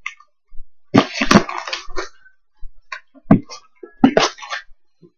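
Cardboard shipping box and the clothes inside it rustling and crinkling as a hand rummages through them, in several short bursts.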